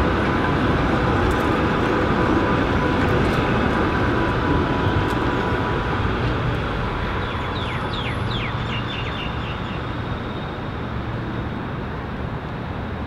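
Melbourne B2 class articulated electric tram running past and drawing away along its track, a steady rumble that slowly fades, with a thin steady whine in the first few seconds. A bird chirps several times about two-thirds of the way through.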